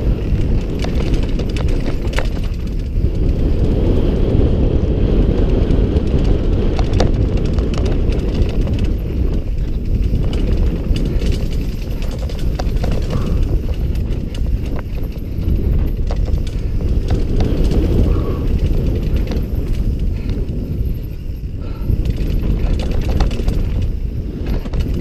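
Wind buffeting a helmet-mounted camera's microphone as a mountain bike is ridden fast down a dirt trail, with a steady low rumble and frequent sharp clicks and knocks from the bike's tyres, chain and frame rattling over the ground.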